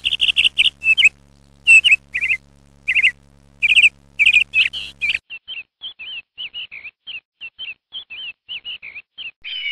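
A small bird chirping in quick runs of short, high notes, loud at first and softer after about five seconds, when a low hum underneath stops abruptly. Near the end a longer, falling whistle-like call begins.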